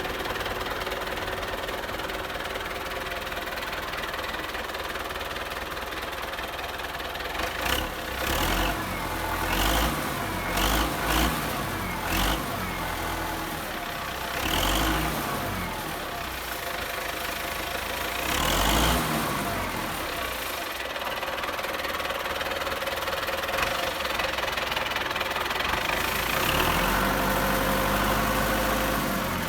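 Belarus MTZ 820 tractor's four-cylinder diesel engine idling, then revved in a series of short bursts from about eight seconds in. Near the end it is held at higher revs for a few seconds.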